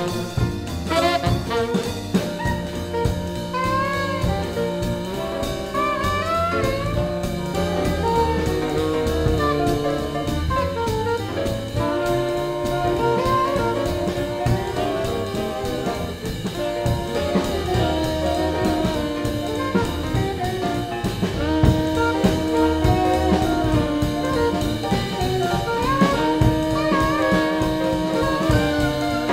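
Swing band playing live: saxophones and brass, a trumpet and a trombone among them, play over a drum kit and double bass in a jazz jump tune.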